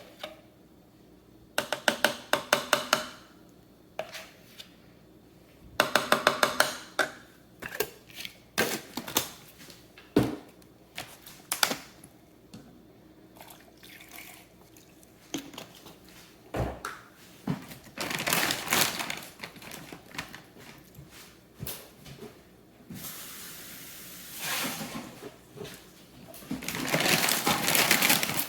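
Kitchen food-preparation sounds with dishes and utensils: two quick runs of rapid, even tapping strikes near the start, then scattered clinks and knocks, and a few longer stretches of rustling, hissing noise near the end.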